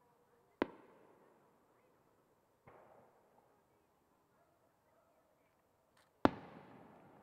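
Aerial firework shells bursting: a sharp bang about half a second in, a fainter one near three seconds, and the loudest bang near the end, each trailing off in a rolling echo.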